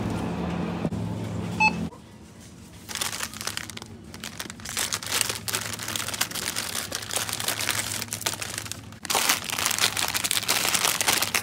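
Instant noodle packets crinkling as they are handled, loudest in the last two seconds. A steady low hum runs until about two seconds in and then stops.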